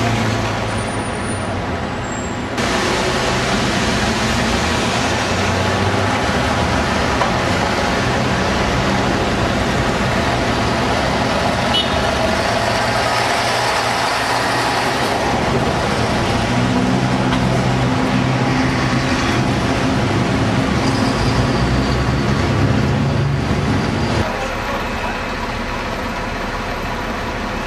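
Diesel engines of London double-deck buses running in busy street traffic. A Routemaster passes close by with its engine loud and steady.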